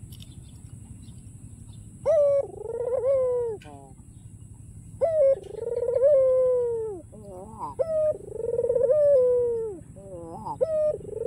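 White Barbary dove (puter) cooing: a series of long rolling coos, each rising sharply at the start and falling away at the end, broken by short notes, beginning about two seconds in.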